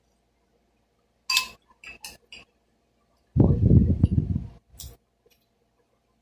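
Metal cutlery clinking against a plate while eating: a sharp ringing clink a little over a second in, a few light taps, and another clink near the end. Between them comes a louder muffled, low-pitched noise lasting just over a second.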